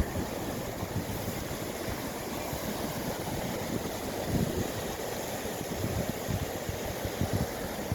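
Wind buffeting the microphone over a steady wash of water, with one sharp knock at the very start.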